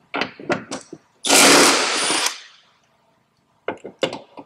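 A 3/8-inch impact wrench with a 13 mm socket hammering for about a second, loosening a nut that holds the truck's hood to its hinge. Light clicks and knocks come before and after the burst.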